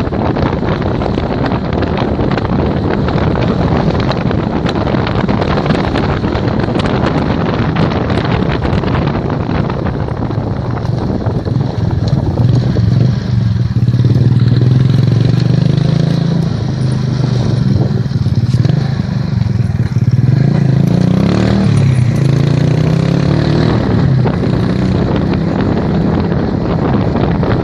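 Wind buffeting the microphone, with a motor vehicle's engine droning underneath; the engine grows louder about halfway through and its pitch wavers for a few seconds before easing off.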